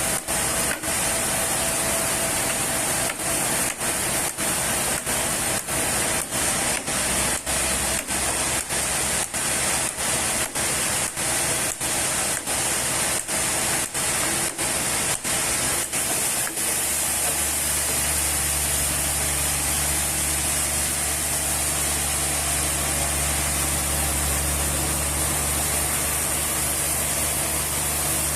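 Sawmill machinery working wood: a loud steady hiss, broken by brief regular dips about three times every two seconds. About two-thirds of the way through the dips stop and a steady low motor hum comes in under the hiss.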